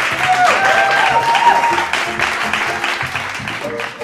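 Background music with a dense, hissy texture and a few sliding high notes in the first two seconds, changing near the end to a lighter track of short plucked or struck notes.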